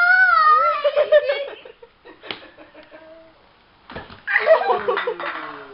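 A small child's high-pitched squealing voice, then a short lull broken by a single slap-like knock, then more child vocalizing and laughing near the end.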